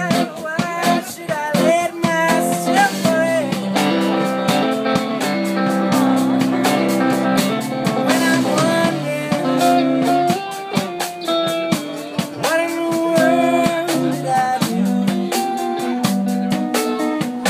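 Live band playing a song: an electric guitar with sustained, bending notes over a drum kit keeping a steady beat.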